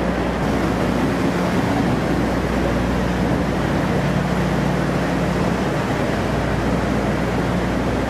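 Engines of the half-scale UHAC amphibious connector running steadily, a low hum under an even wash of water churned up by its tracks inside the ship's well deck.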